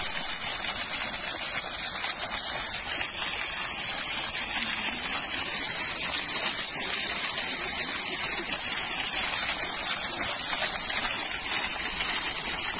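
Frothy water gushing and splattering steadily from the delivery pipe of a compressor-driven bore-well pump, where compressed air lifts the water up the bore.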